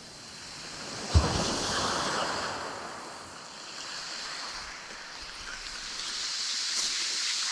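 Waves washing on the shore, swelling and fading in slow surges, with wind on the microphone and one sudden thump about a second in.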